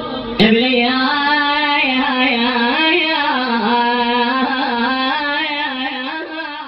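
Music from an Iraqi lament song: a single melody line with heavy vibrato and wavering ornaments, fading out near the end. A sharp click sounds about half a second in.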